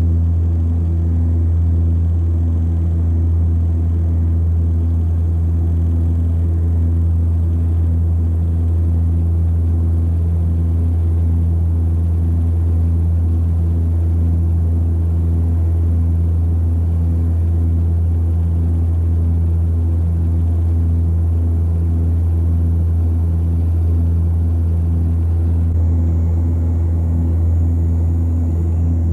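Cabin drone of an Antonov An-24RV's Ivchenko AI-24 turboprop engines and propellers on the night approach to landing: a loud, steady low hum with a regular pulsing throb in the tones above it. A faint high whine joins near the end.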